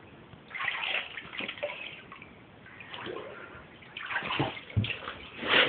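Bath water splashing and sloshing in short, irregular bursts as a toddler plays in the bathtub.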